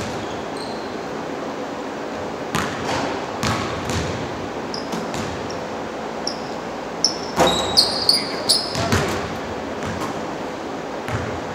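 Basketballs bouncing on a hardwood gym floor: scattered thuds, with short high squeaks bunched in the middle of the stretch.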